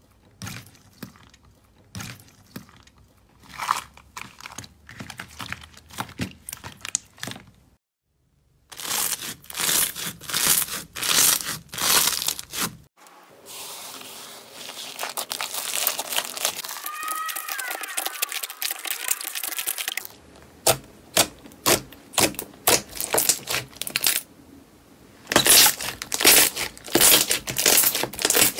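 Slime being squeezed, pressed and pulled by hand, making sticky clicks, pops and crackles in quick runs. In the middle there is a steadier crackling hiss as slime is pulled up out of a tub.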